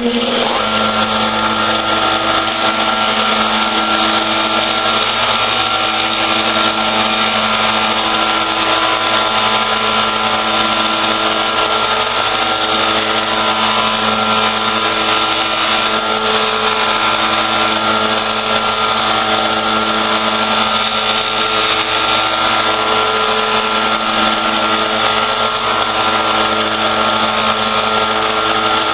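Benchtop electric disc sander starting up and then running steadily with a loud motor hum, while a laminated hardboard disc is held against the sanding disc to sand its edges even.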